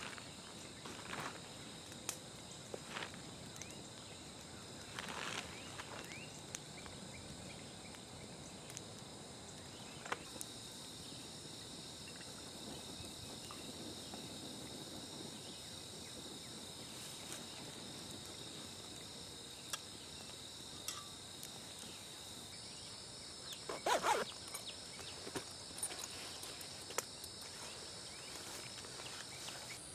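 Steady high-pitched insect chorus, with scattered short rustles and knocks on top and a louder cluster of them about three-quarters of the way through.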